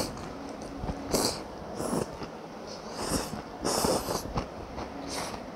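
A person slurping rice noodles from a bowl of beef noodle soup with chopsticks: several short, loud slurps about a second apart.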